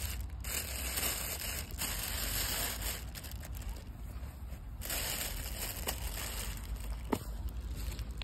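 Black plastic bin bag crinkling and rustling as it is handled around a wire cage, over a steady low rumble, with a couple of sharp clicks near the end.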